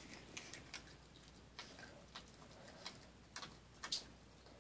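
Puppy chewing and biting on a plastic toothbrush while its teeth are brushed: faint, irregular clicks of teeth on the brush, roughly one every half second, the loudest near the end.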